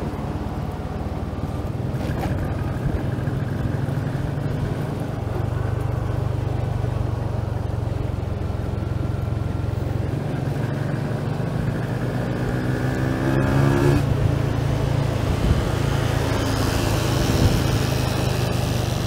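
A vehicle's engine running steadily while on the move along a road, with wind noise. About two-thirds of the way through the engine note rises as it speeds up, then levels off, and the wind hiss grows near the end.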